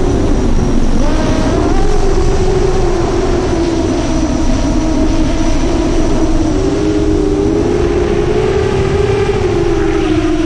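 A 7-inch FPV quadcopter's brushless motors and tri-blade props whining in flight, the pitch wavering up and down as the throttle changes, over a steady rushing noise.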